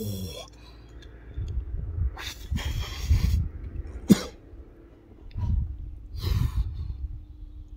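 A man coughing and breathing out hard in several short bursts, reacting to the strong smell of a freshly opened tin of fermented herring, with a single sharp click about four seconds in.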